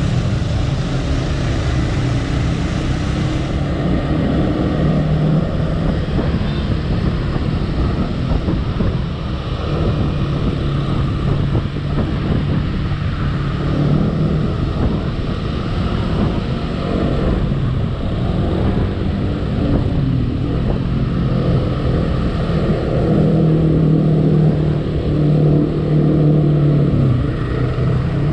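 Motorcycle engine running while riding in traffic, its note rising and falling with speed and louder in the last few seconds, with wind rushing over the microphone.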